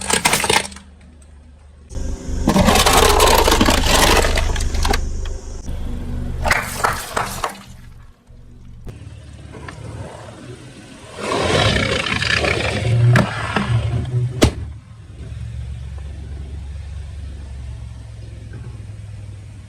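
Car engine running low and steady, with three loud noisy bursts as objects are crushed under the tyres, and a sharp snap about fourteen and a half seconds in.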